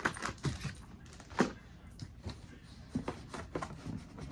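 A cardboard box being handled and moved: scattered light knocks and rustles, with one sharper knock about a second and a half in.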